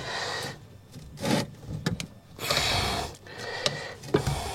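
Rubber tire bead and steel tire lever scraping and rubbing against a scooter wheel rim as the bead is levered on by hand. The scraping comes in about four strokes, with a few sharp clicks of metal on metal.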